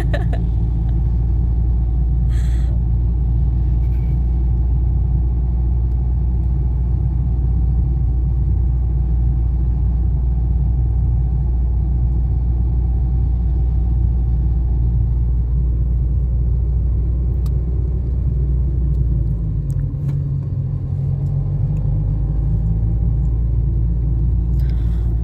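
Car being driven, heard from inside the cabin: a steady low rumble of engine and road noise that eases briefly about twenty seconds in.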